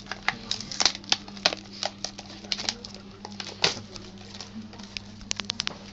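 Irregular sharp clicks and taps of hard plastic being handled, a few a second with a quick run of clicks near the end, over a steady low electrical hum.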